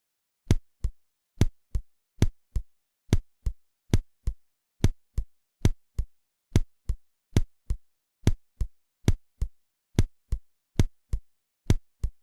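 Recorded human heart sounds: about fourteen first-and-second heart-sound pairs (lub-dub) in a nearly even rhythm, with the gap between beats alternating slightly longer and shorter. This is bigeminy with very late extrasystoles, so the arrhythmia is minimal and hard to catch by ear.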